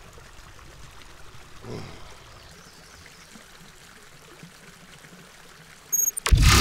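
A faint steady hiss, then about six seconds in a sudden loud burst of a sci-fi energy sound effect as a glowing blue magical staff is conjured.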